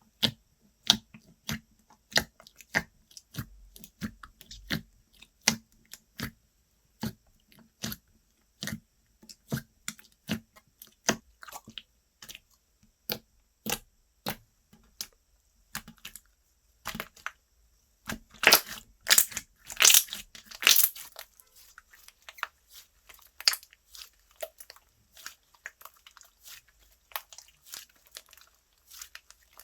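Slime being pressed and squished by hand, making sharp clicking pops about once or twice a second. A little past the middle comes a louder, denser run of crackling squishes lasting about three seconds.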